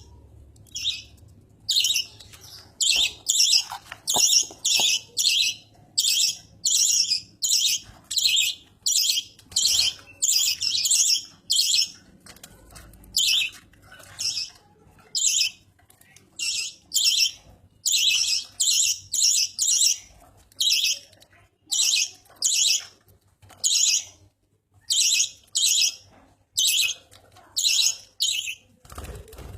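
Budgerigar giving short, loud, high-pitched chirping calls over and over, about two a second, with brief pauses between runs.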